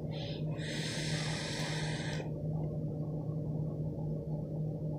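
A long draw on an e-cigarette: a brief puff, then about a second and a half of airy hiss as air is pulled through the device on the inhale. After that only a steady low hum remains.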